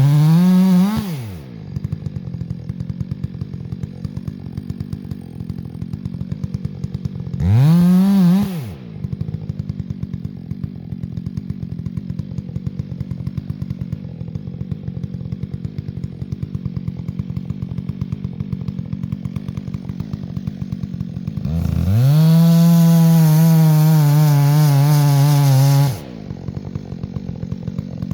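Chainsaw idling with a steady pulsing beat and being revved: two short blips of the throttle, one at the start and one about 8 s in, then held at full throttle for about four seconds before it drops back to idle near the end.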